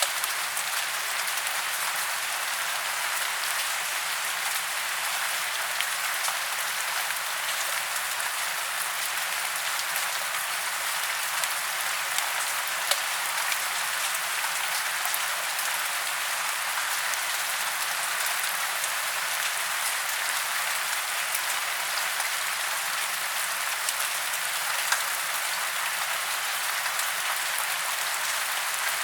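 Steady rain falling on tree leaves and branches, a constant hiss with many small drop taps scattered through it.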